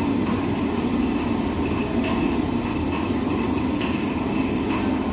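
Water-powered stone flour mill (panchakki) running: its millstones turning and grinding grain into flour with a steady, unbroken grinding noise.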